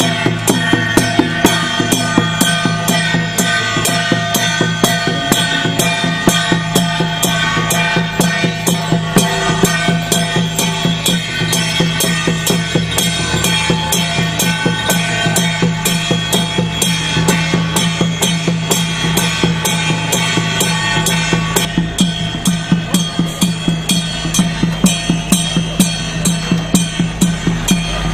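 Temple procession music: drums beating a steady pulse of a little over two beats a second under a sustained, held melody.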